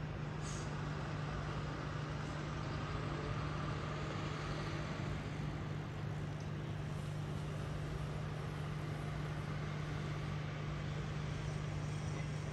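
Steady street traffic sound from the road below, with a constant low hum running underneath.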